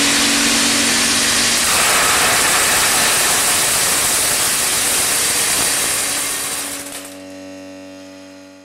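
Vibrating feeder running, with ore lumps rattling along its steel trough out of the hopper and dropping into a metal bin: a loud, steady, hissing rattle. About seven seconds in the rattle stops and a ringing tone fades away.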